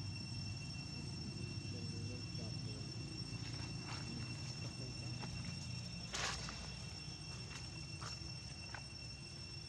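Night insects trilling in one steady high-pitched drone over a low hum, broken by a few sharp clicks or snaps, the loudest about six seconds in.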